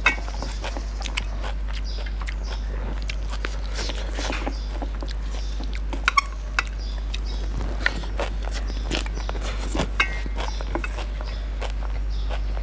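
Eating sounds: biting and chewing, with scattered short clicks and taps as fingers mix rice on a plate, over a steady low hum.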